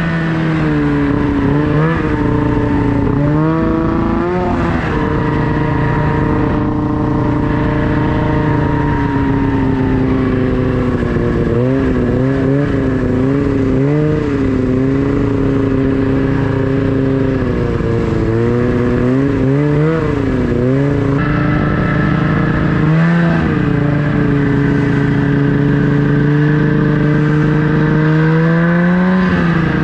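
Snowmobile engine running while riding, its pitch dipping and climbing several times as the throttle is eased off and opened again.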